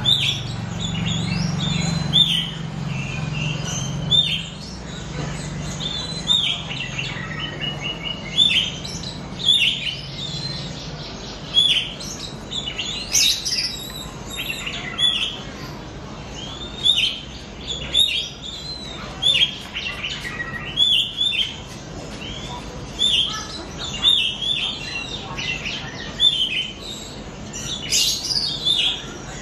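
Oriental magpie-robin (kacer) chirping, a raw young bird still learning its song: a run of short curved notes repeated about every second, with a few louder, higher calls about halfway through and near the end. A low steady hum lies under the first ten seconds or so.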